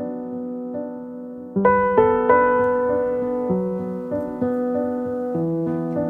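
Background piano music: a slow run of single notes over held low tones, with a louder chord struck about one and a half seconds in.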